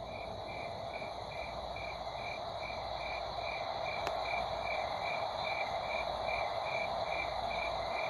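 Crickets chirping steadily, about two and a half chirps a second, over a low hiss.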